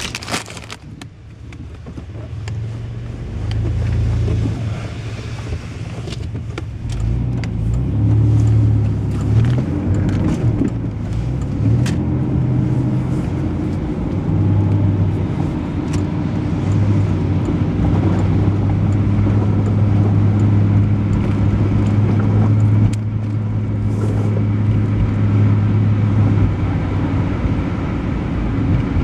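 Pickup truck driving, heard from inside the cab: a steady low engine drone with road noise, building up over the first several seconds as the truck gets under way.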